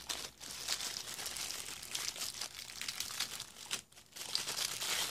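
Thin plastic packaging bag crinkling and rustling as hands unwrap a small part. There is a brief pause just before four seconds in.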